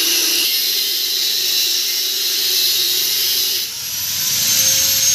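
Steady, loud hiss that dips briefly near the end.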